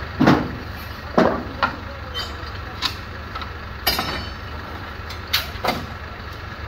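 Heavy steel bank safe being levered along wooden planks with long iron pry bars: about eight irregular sharp knocks and clanks of iron on wood and steel, over a steady low rumble.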